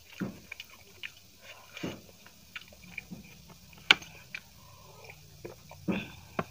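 Close-miked eating sounds: chewing and wet lip smacks in scattered short bursts. A little past the middle there is one sharp clink as a drinking glass is picked up from the table, followed near the end by sips from the glass.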